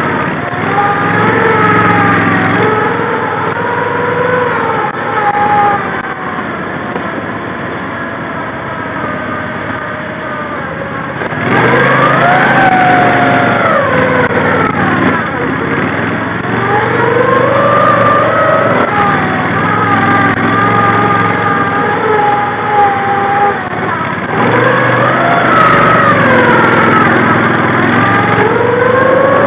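Engine of a tracked Argo amphibious ATV working through deep wet holes. It runs steadily at first, then revs up sharply about a third of the way in, and its pitch rises and falls several more times as it is throttled through the muck.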